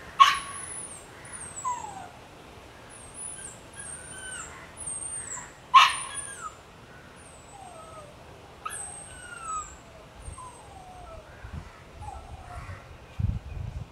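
A dog yelping twice, about five and a half seconds apart, with short falling whimpers and high chirping notes after each yelp.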